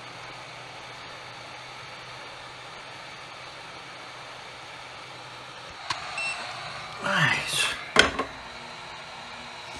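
Hot air rework gun blowing steadily while desoldering MOSFETs from a circuit board. About six seconds in there is a louder rush of air with handling clatter, then a single sharp knock.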